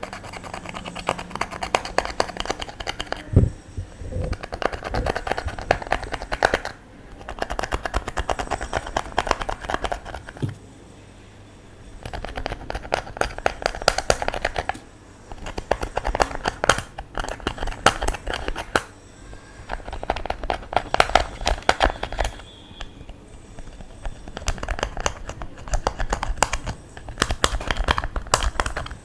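Clear slime being squished and kneaded by hand: dense crackling clicks from small air pockets popping, in bursts of a few seconds broken by short pauses.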